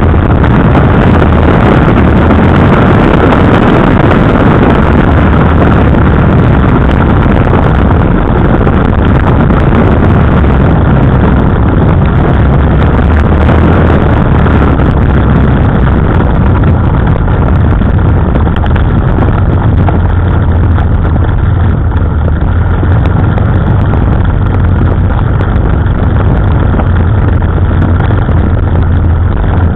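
KTM 990 Adventure's V-twin engine running steadily as the bike rides along, very loud and close, with a rushing noise over it.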